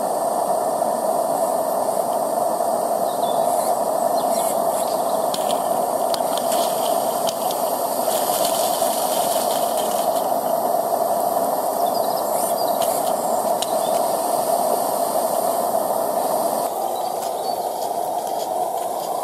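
Steady hiss from a gas-fired live-steam G-scale locomotive, a Regner RhB Mallet, under steam. The hiss eases near the end.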